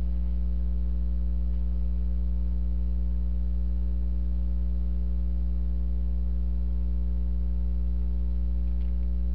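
Steady electrical mains hum with a ladder of even overtones on the recording, low and unchanging, loud enough to match the level of the speech around it.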